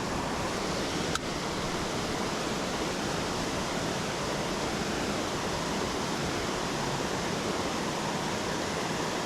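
Creek water running steadily, with a single brief click about a second in.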